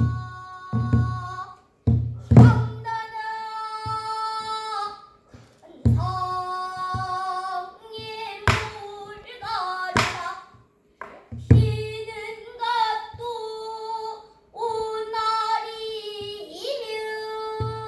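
A child singing pansori in long, held notes that bend and waver, accompanied by a buk barrel drum struck now and then on its head, with a few sharp knocks on its wooden rim.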